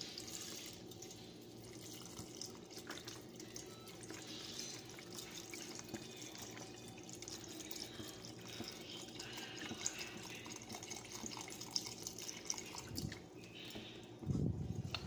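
Fresh milk pouring from a carton into a pot of macaroni and chicken, a quiet steady pour. A brief louder low thump comes near the end.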